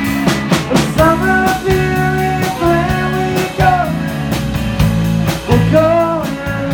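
Live rock band playing: electric guitar and drum kit, with a held, wavering melody line over a steady beat.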